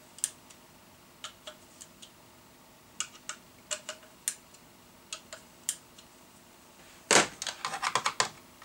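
Screwdriver tightening the screws on a small plastic-cased round CB extension speaker: scattered small clicks and ticks, then a run of louder clattering about seven seconds in as the speaker is handled. The screws are being tightened because the speaker rattles, possibly from loose screws.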